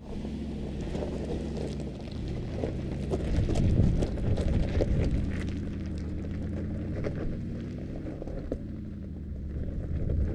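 Mercedes-Benz G-Class engine running at low revs under load, with its tyres crunching over loose rock and gravel, stones cracking and popping under the wheels. The crunching is loudest a few seconds in.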